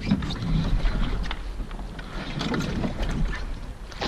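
Wind buffeting the microphone and water splashing against the hull of a small boat, with a few short sharp clicks.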